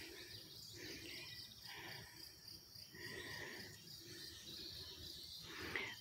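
Faint, steady high trilling of crickets and other insects, with soft rustles at intervals.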